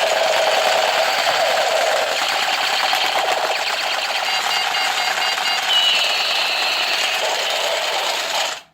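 Battery-powered toy SCAR assault rifle running its firing effect: a continuous fast buzzing rattle that cuts off suddenly near the end.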